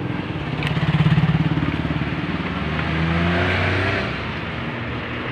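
A motor vehicle's engine running, loudest about a second in, its pitch shifting up and down.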